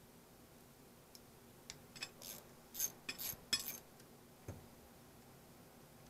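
Screwdriver and small screws clicking and scraping on a rusted metal sump pump housing: a cluster of short metallic clinks and scrapes lasting a few seconds, then one dull knock.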